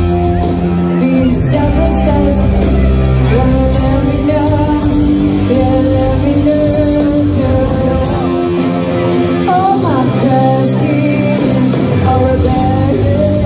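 Live rock band playing: a woman sings the lead melody over distorted electric guitar and drums, with cymbals crashing.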